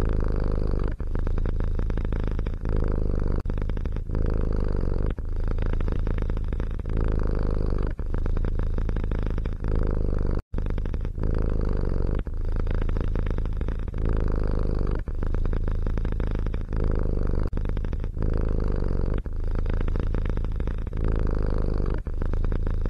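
A domestic cat purring loudly, the purr swelling and easing with each breath a little more than once a second. It cuts out for a split second about ten seconds in, then resumes.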